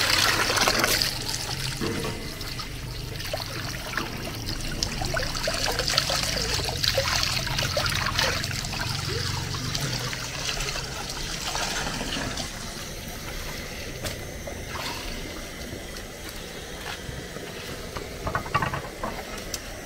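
Water from an outdoor tap splashing over pieces of fish on a plate and running off into a bucket as the fish is rinsed by hand, quieter in the second half, with a few light knocks near the end.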